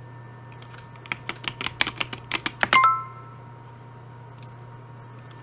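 Typing on a computer keyboard: a quick run of keystrokes starting about a second in, followed near the three-second mark by a short three-note chime from the Babbel language app, signalling that the typed answer was accepted.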